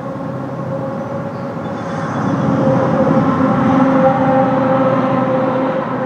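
Several outdoor warning sirens sounding a steady alert tone together, the nearest a 4/5-port Thunderbolt siren. The held tones swell louder between about two and four seconds in as the rotating siren turns past the microphone, then ease off.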